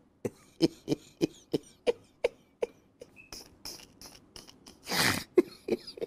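Wet clothes being pounded in a wooden mortar: a steady run of sharp wet thuds about three a second, strong at first and lighter after about two and a half seconds. A short cough-like burst about five seconds in.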